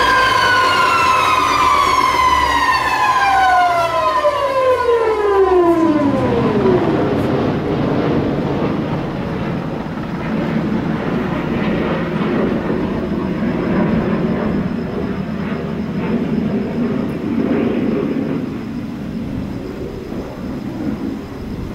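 Corporate jet APU spooling down after a failed start: its turbine whine falls steadily in pitch over about six or seven seconds, alongside a steady high tone that stops at about the same time. A steady broad rushing noise follows. Fuel is dripping from the exhaust without light-off, and the mechanic suspects the APU igniter plug.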